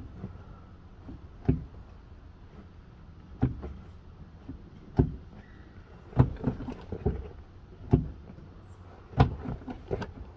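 Infiniti G35 clutch pedal and its linkage being pressed and let up over and over, giving a clunk every second or two, some followed by a few lighter clicks. The pedal is limp and does not return fully to the top.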